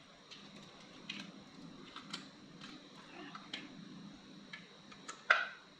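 Small plastic parts of a Clicbot robot kit being handled and tried together: light, irregular clicks and taps, with one sharper click about five seconds in.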